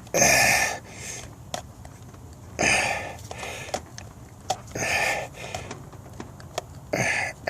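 A person breathing hard close to the microphone, a sharp nasal breath or sniff about every two seconds, with light clicks and taps from parts being handled.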